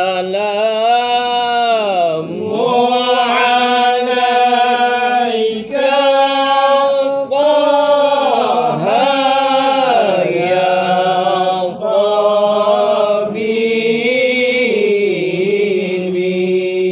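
Male voices chanting Islamic zikir in long, melismatic held notes that glide up and down, with short breaks between phrases.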